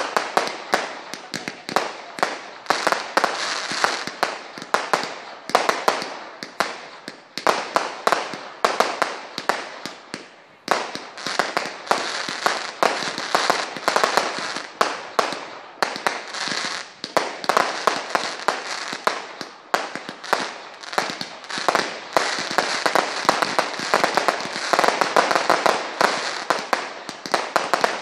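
Category 2/3 consumer fireworks firing in quick succession: a dense run of sharp bangs with crackling stars. There are short lulls about ten and sixteen seconds in.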